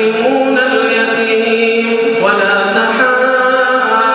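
A man's voice reciting the Quran in the melodic tajweed style, drawing out long held notes that step to a new pitch a few times.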